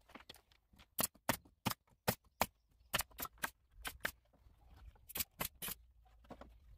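Pneumatic brad nailer firing nails into scrap pallet boards: about a dozen sharp shots in quick succession, two or three a second, starting about a second in and stopping near the end.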